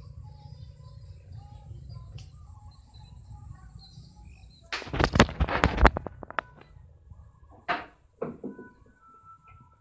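Faint bird chirps over a low steady rumble, then about a second in the middle of loud rubbing and scraping as a finger handles the phone over its microphone, followed by a few sharp knocks of handling.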